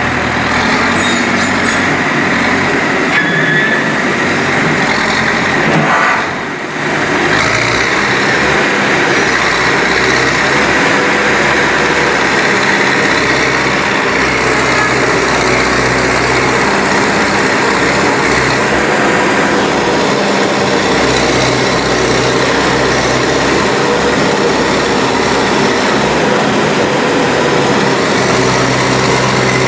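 Backhoe loader's diesel engine running steadily while it works, with a brief dip in level about six seconds in.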